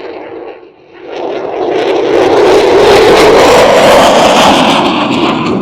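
Aircraft flying past, a loud roar that swells, peaks, then fades, its pitch falling as it goes by.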